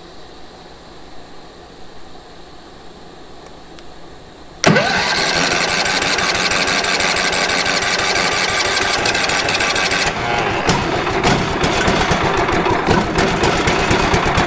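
Wood-Mizer LT15 sawmill's gasoline engine being started on choke after sitting unused for years: after a quiet stretch the engine cranks suddenly and loudly about five seconds in, and from about ten seconds it begins firing unevenly as it catches and comes to life.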